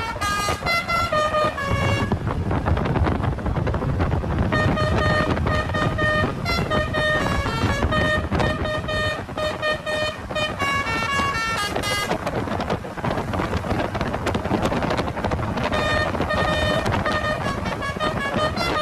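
Indonesian bus 'telolet' musical air horn playing quick runs of stepped notes, like a little tune, over steady low noise. The horn stops twice for a few seconds.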